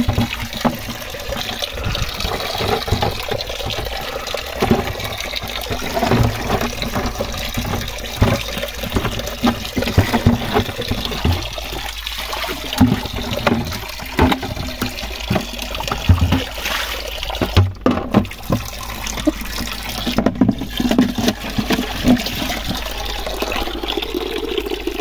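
Spring water pouring steadily from a pipe outlet and splashing into a shallow pool, with irregular sharper splashes.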